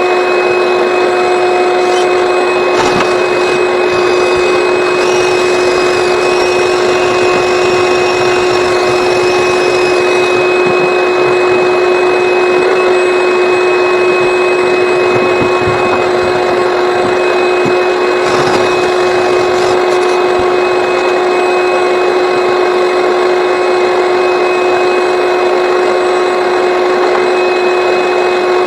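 Vacuum running steadily with a constant whine over its rush of air, drawing lint out of a clogged dryer vent, with a few brief knocks.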